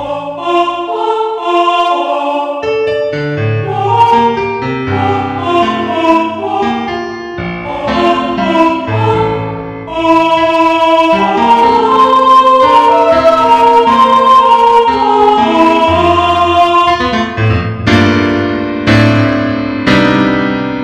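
Background music led by piano: struck notes at first, then from about ten seconds in a fuller stretch of held notes, with struck piano chords returning near the end.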